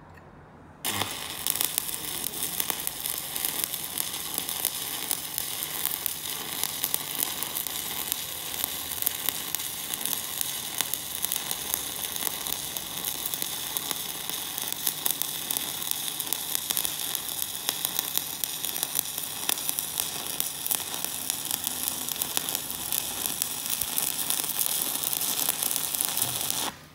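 Stick-welding (SMAW) arc burning a coated electrode at about 125 amps: a steady, dense crackle that starts as the arc is struck about a second in and cuts off sharply when the arc is broken near the end.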